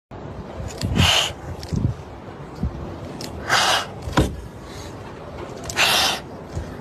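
Frightened kittens hissing: three long hisses about two and a half seconds apart, with a few shorter sharp sounds between them.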